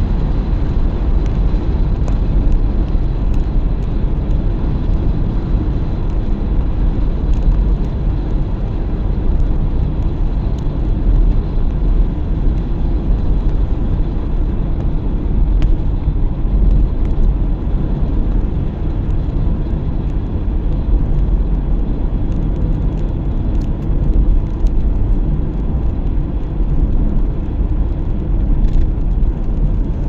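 Steady low rumble of a moving car, road and engine noise heard from inside the cabin.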